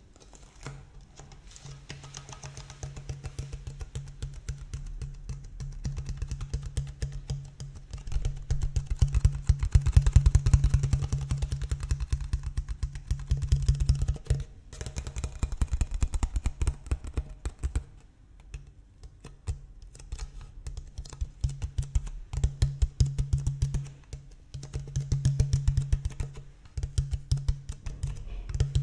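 Fingertips tapping rapidly on an empty plastic water bottle, giving quick hollow clicks in bursts with short pauses between them. The tapping starts soft and grows louder after the first few seconds.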